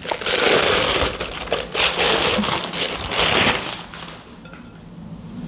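Wrapping being pulled off a purchase by hand, crinkling and rustling loudly for about four seconds, then quieter handling.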